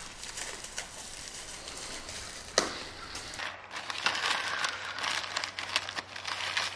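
Plastic packaging crinkling and rustling as hands open a bubble-wrap pouch and pull at a thin plastic bag, with one sharp click about two and a half seconds in and busier crinkling in the second half.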